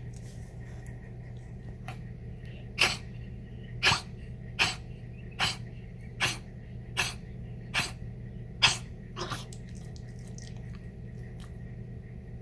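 Senior Chihuahua coughing in a run of about eight short, sharp coughs, roughly one a second, ending with a fainter double cough. It is a reflux cough: the dog's coughing was diagnosed as acid reflux.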